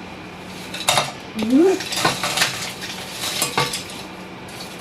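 Kitchen utensils knocking and clattering against a cooking pot in a few separate clusters, as chopped leek is tipped into a soup pot. There is a short rising squeak about one and a half seconds in.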